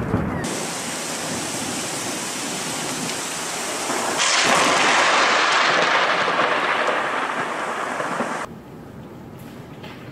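Heavy rain pouring down as an even hiss, suddenly louder about four seconds in and slowly easing, then dropping to lighter rain near the end.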